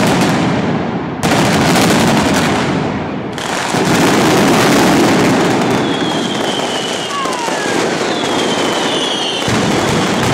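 Mascletà firecrackers (masclets) going off in a dense, continuous barrage of loud bangs and crackles. From about six seconds in, several whistles falling in pitch come from fireworks bursting overhead.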